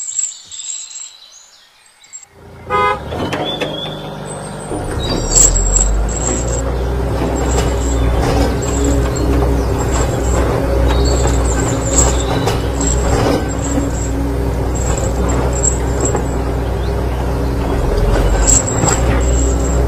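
A vehicle engine starts about three seconds in, after a quiet moment, and keeps running steadily, with a deep low rumble building about five seconds in.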